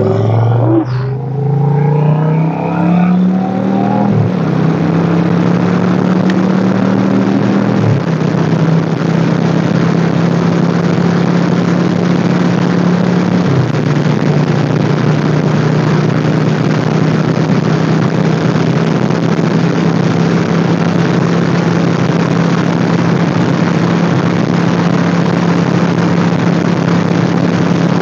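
Motorcycle engine pulling away and accelerating through the gears, its pitch rising then dropping at three upshifts in the first dozen seconds, then holding a steady cruise. Heavy wind rushes across the microphone throughout.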